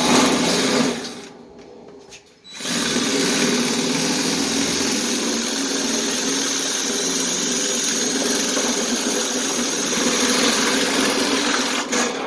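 Power tool running while being pressed down to cut: a short burst, a pause of about a second, then a steady run for most of the rest.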